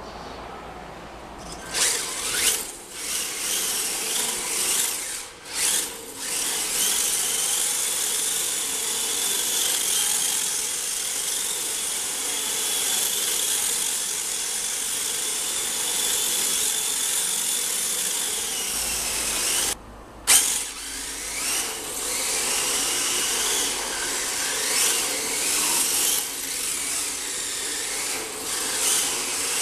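Electric motor of a radio-controlled model car whining, with tyre noise on concrete; the pitch glides up and down with the throttle, holds steady through a long middle stretch, and breaks off for a moment about two-thirds of the way through.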